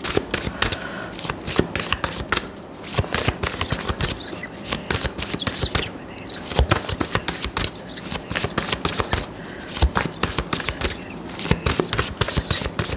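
Tarot cards being shuffled by hand: a fast, uneven run of soft clicks and slaps as the cards riffle against each other.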